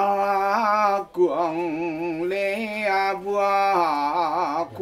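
A Mường shaman's solo Mo chant: one man's voice holding long, drawn-out notes with a wavering ornament, breaking off briefly for a breath about a second in before going on.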